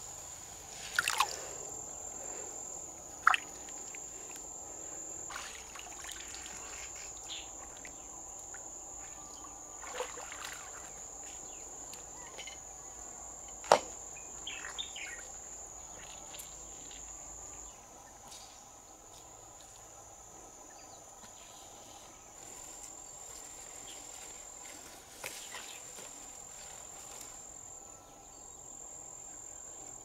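Shallow river water sloshing and trickling as hands and feet move through it, with a steady high-pitched insect drone throughout. A handful of sharp clacks stand out, the loudest about fourteen seconds in.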